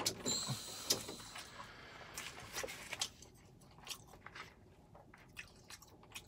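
Close-up chewing and mouth sounds of a person eating pad Thai noodles: wet smacks and small clicks, busiest in the first three seconds, then sparser.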